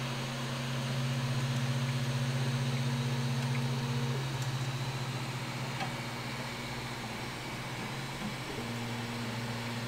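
Creality Ender 3 3D printer running a print after an SKR Mini E3 v1.2 mainboard swap: a quiet, steady low hum from its stepper motors, over the whir of its cooling fans. The pitch of the hum shifts about four seconds in and again near the end as the moves change.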